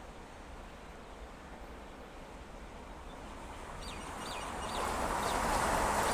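Rushing noise of an oncoming train that grows steadily louder from about four seconds in, over a low background rumble. A few short bird chirps come about four to five seconds in.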